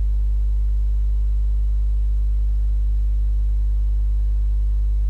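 Steady low electrical mains hum with a stack of overtones, unchanging in pitch and level.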